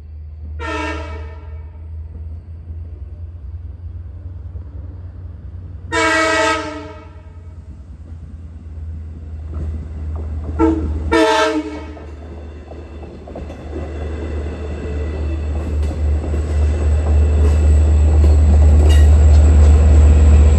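A train horn sounds four blasts, long, long, short, long: the standard warning for a grade crossing. The train's rumble then builds steadily louder as it reaches the crossing and passes near the end.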